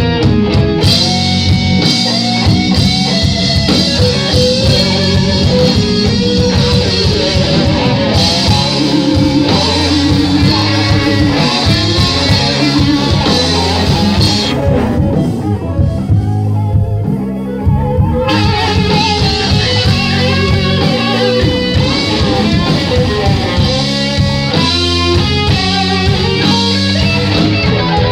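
Live rock band playing: electric guitars, bass guitar and drum kit, loud and continuous. About halfway through the cymbals and top end drop out for a few seconds, then come back in.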